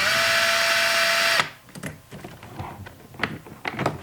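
Cordless power screwdriver running steadily to back out a door-panel screw, stopping abruptly about a second and a half in, followed by a few light clicks of handling.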